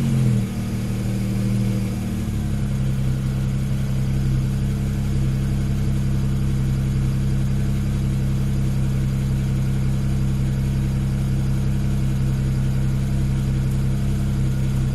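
BMW 335i's twin-turbo N54 inline-six, cold, running through catless downpipes and the stock exhaust with the exhaust flap held open. It winds down from a rev over the first two seconds, then idles steadily.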